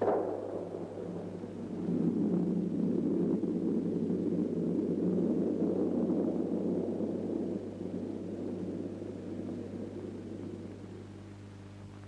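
An explosive charge blasting rock: a sudden bang, then a long rumble that swells about two seconds in and dies away over the next several seconds.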